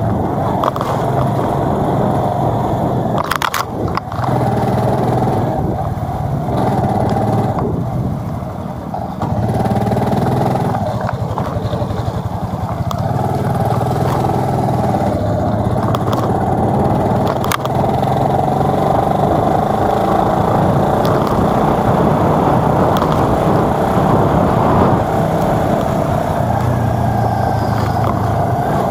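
Small two-wheeler engine running steadily as it rides along a street, with road and wind noise; a couple of sharp clicks, about three seconds in and again about seventeen seconds in.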